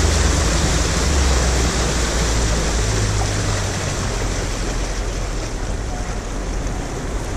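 Motorboat under way: a steady low engine hum beneath a loud rush of wind and water.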